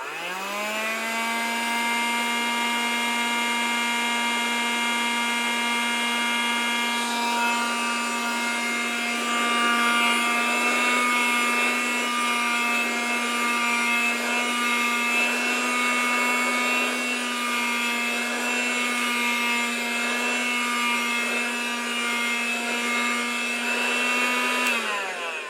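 Vacuum cleaner motor spinning up to speed in the first second, with its whine rising. It then runs steadily with a high-pitched whine over a rush of air, and near the end the pitch falls as it is switched off and winds down.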